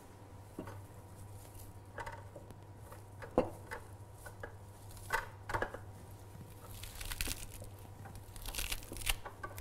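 Kitchen handling noise: scattered light knocks and clicks with crinkling, rustling bursts as a bunch of fresh parsley and utensils are handled on a countertop, over a faint steady low hum.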